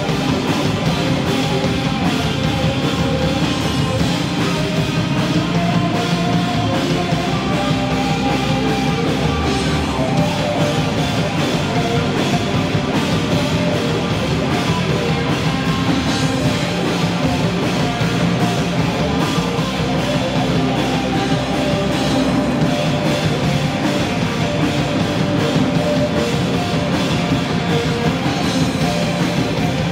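Live rock band playing loudly: electric bass, electric guitar and drum kit together, without a break.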